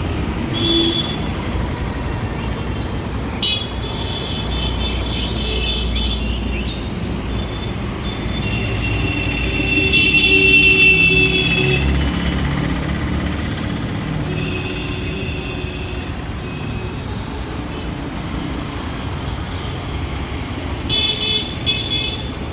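Steady road traffic noise with vehicle horns sounding several times, in held and short toots; the loudest stretch is about ten seconds in, and a quick run of short toots comes near the end.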